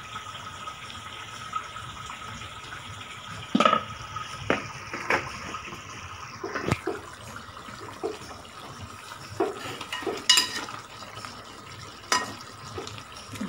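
Chicken cooking in coconut oil in a large metal pot, a steady sizzling bubble, with a metal spoon knocking and scraping against the pot several times as the chilli powder is stirred in.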